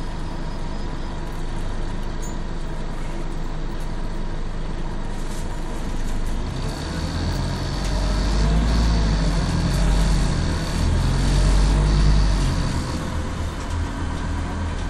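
Scania CN280UB city bus engine heard from inside the passenger cabin, running low and steady, then working harder and louder from about six seconds in as the bus pulls away, easing off again near the end.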